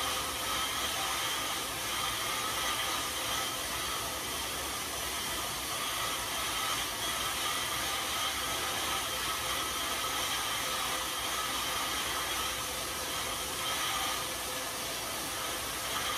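Road bike tyres spinning fast on indoor rollers: a steady whirring hiss with a few faint steady tones, holding level throughout a hard effort.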